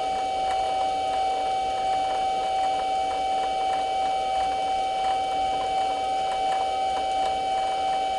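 Metal lathe running steadily, spinning the ER32 flange-mounted collet chuck, with a constant whine and a few faint ticks.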